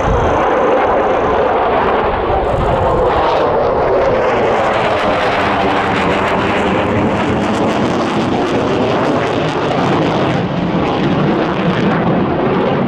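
Jet noise from a Mitsubishi F-2B fighter's single F110 turbofan, loud and continuous as the jet turns overhead. About halfway through, its tone takes on a swirling sweep that falls and rises in pitch as the jet moves across the sky.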